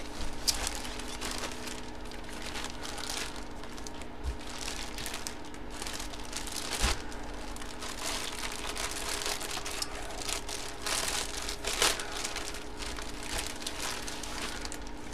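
Thin plastic bags crinkling and rustling in irregular bursts as a bagged jersey is handled and unwrapped, over a steady low electrical hum.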